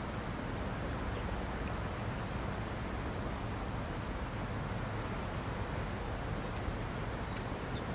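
Steady background noise: an even hiss with a low rumble underneath and no distinct events.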